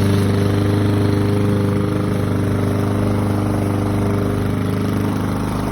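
Gasoline lawn mower engine running steadily at a constant pitch while cutting grass.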